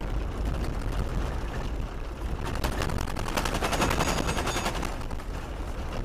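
Car driving on a gravel road: steady tyre and road noise with a rapid, irregular clatter of gravel hitting the car's underside, thickest in the middle.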